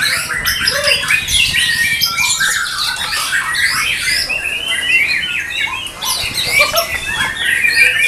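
Several caged white-rumped shamas (murai batu) singing at once: a dense, unbroken tangle of fast whistled phrases, sharp notes and trills overlapping one another.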